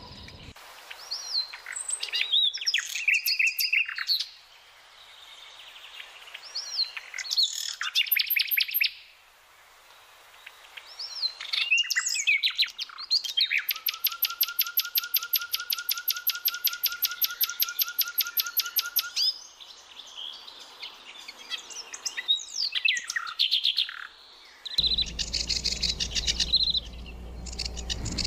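Common nightingale singing: varied phrases of clear whistles and chirps with short pauses, and in the middle a rapid run of repeated notes lasting about six seconds. Near the end a low steady hum comes in under further chirping song.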